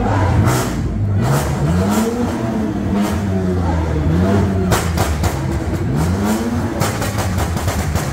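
Sports car engine being revved about three times while rolling slowly, each rev climbing and falling back. Sharp cracks sound between the revs, over a loud low engine rumble and crowd noise.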